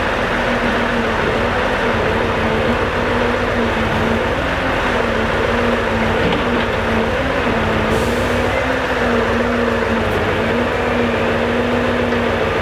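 Scania R650 V8 timber truck running to power its truck-mounted Palfinger crane, a steady engine-and-hydraulic drone whose pitch wavers slightly as the crane works. A brief faint hiss comes about eight seconds in.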